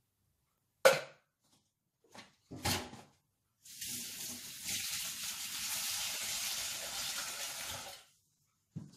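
Kitchen tap running into a sink for about four seconds, a steady hiss that stops abruptly. Before it come a sharp knock and a couple of clattering knocks of kitchenware, and another short knock comes near the end.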